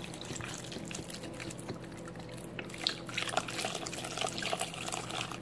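Chicken broth being poured into the stainless inner pot of an Instant Pot Duo Plus over the greens: steady liquid splashing and trickling.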